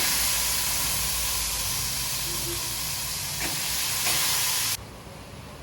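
Yogurt-marinated chicken breast sizzling in hot oil in a pan, a loud steady frying hiss that cuts off suddenly near the end.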